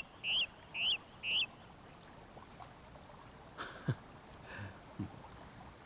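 A bird calling: a run of short, evenly spaced chirps, about two a second, that stops about a second and a half in. After that only a few faint, brief sounds over a quiet outdoor background.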